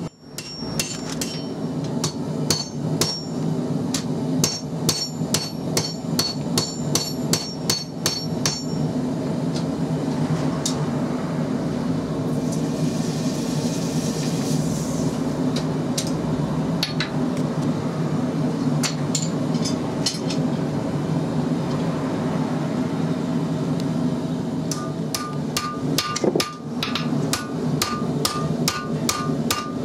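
Hand hammer forging a red-hot XC75 carbon-steel knife blade on an anvil: runs of ringing blows at about three a second for the first several seconds and again over the last five, with only a few strikes in between. A steady low hum runs underneath.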